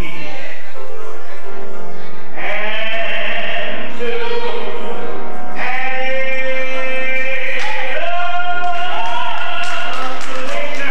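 A man singing a gospel song in several phrases, holding long notes that waver with vibrato.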